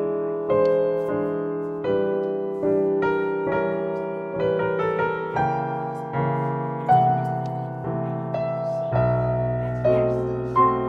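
Background piano music: a slow melody of single notes and chords, each struck and left to ring and fade.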